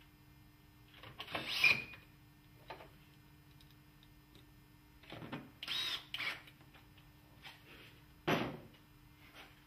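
Cordless drill-driver driving screws into a window sash to fix ROTO NT tilt-turn hardware, in short runs about a second in and again about five seconds in. A sharp knock near the end as the drill is set down on the bench.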